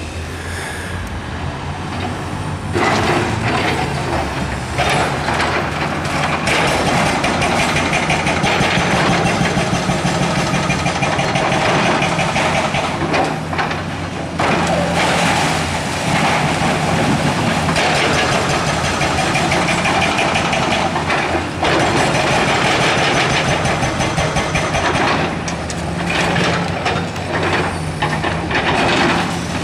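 Diesel demolition excavators running under load, with concrete crunching and rubble falling as the machines break up the building. The noise grows much louder about three seconds in.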